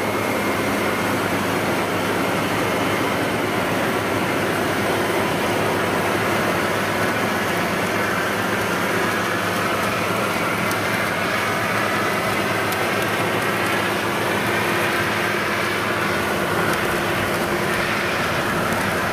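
FMWorld WD102PRO tracked rice combine harvester running under load as it cuts and threshes rice, a steady mechanical din of engine and threshing gear. A whine that wavers in pitch rises out of it in the second half.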